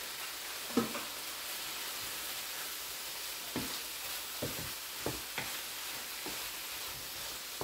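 Chicken pieces sizzling steadily in a frying pan as they are stirred with a wooden spoon, with a few short knocks of the spoon against the pan.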